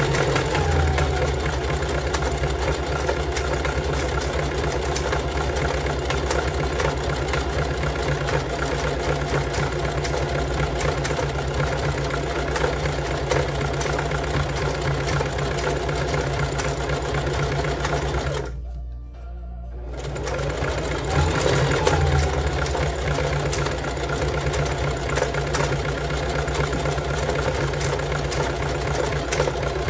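Singer Heavy Duty sewing machine running fast and steadily, its needle stitching through climbing rope. It stops briefly about two-thirds of the way through, then starts again.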